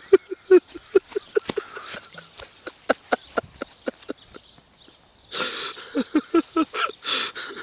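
A man laughing hard in three runs of quick, short 'ha' sounds, each falling in pitch, the last run starting with a noisy breath about five seconds in.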